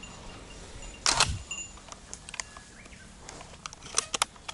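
Footsteps and handling noise from someone walking over soft tilled soil, with a brief loud rustle about a second in and a quick cluster of sharp clicks near the end.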